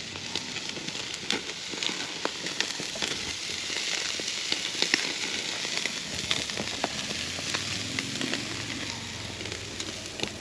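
Ribeye steaks sizzling on a grill grate over burning charcoal, with frequent sharp pops and crackles.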